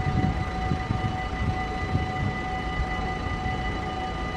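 Dutch level crossing bells ringing steadily as the half-barriers lift after a train has passed, over a low uneven rumble.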